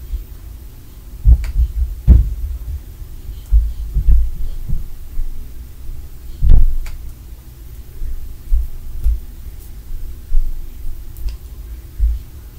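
Irregular dull, deep thuds and bumps carried through the building's floor or walls from a neighbouring unit, typical of stomping and things being dropped. There are about a dozen, uneven in spacing and strength, and the heaviest come about a second and a half, two seconds and six and a half seconds in.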